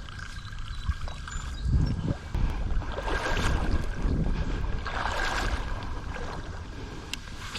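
River rapids rushing and water splashing as someone wades upstream through them, with wind buffeting the microphone. Splashing swells louder twice, about three and five seconds in.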